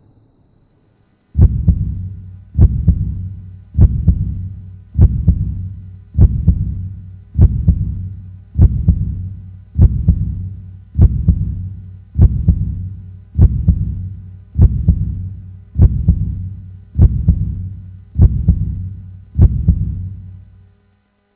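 A deep, heavy thump repeating at a strictly even pace, about once every 1.2 seconds, sixteen times, each dying away before the next; it starts about a second in and cuts off abruptly near the end.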